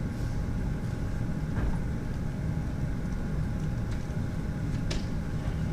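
Steady low rumble of room background noise picked up by the microphone, with a faint steady tone and a couple of brief clicks, one about a second and a half in and one near the end.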